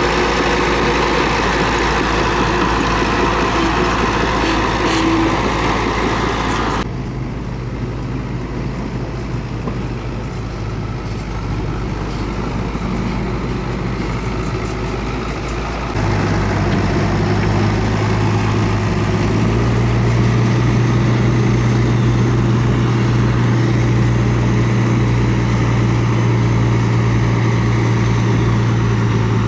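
Komatsu D31P bulldozer's diesel engine running steadily. The sound changes abruptly twice, about 7 and 16 seconds in, and after the second change it runs with a louder, steady low hum.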